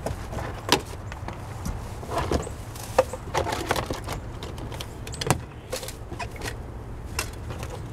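Irregular small clicks, knocks and rustles of items being pulled out of a pickup's plastic door pocket and handled into a plastic bag, over a steady low rumble.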